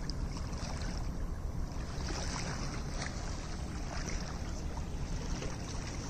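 Motorboat under way: a steady low engine hum under the rush of water along the hull, with wind on the microphone.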